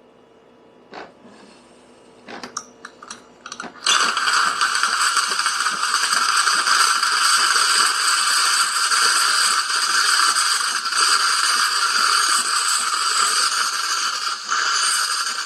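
A few clicks and knocks, then about four seconds in the steam wand of a De'Longhi La Specialista espresso machine opens and vents steam in a loud, steady hiss, the last step of priming the machine.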